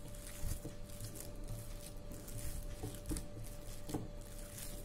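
A hand kneading and squishing raw minced chicken mixed with spices and ground dal in a glass bowl: soft, wet, irregular squelching with a few faint taps.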